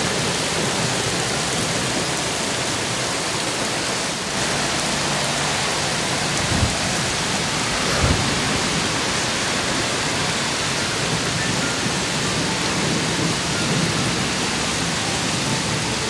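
Heavy rain pouring steadily onto flooded, muddy ground, a constant even hiss, with two brief low thumps near the middle.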